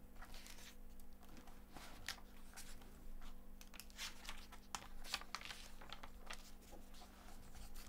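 Paper pages of a book rustling as they are handled and turned, a string of short crisp rustles, over a faint steady electrical hum.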